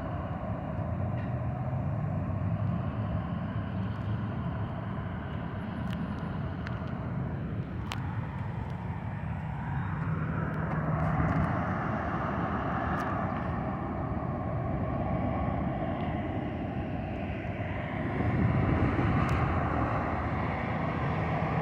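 Car rolling slowly, with a steady engine and road-noise rumble that swells around ten seconds in and again near eighteen seconds.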